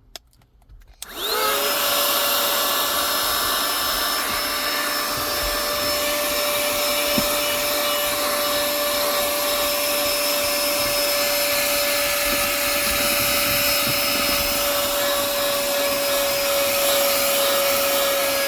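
Small handheld car vacuum switched on about a second in. Its motor spins up to a steady whine over a hiss of suction and runs on evenly.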